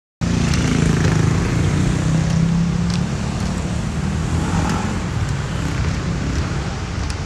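Loud, steady outdoor noise: a low rumble under an even hiss, cutting in abruptly just after the start.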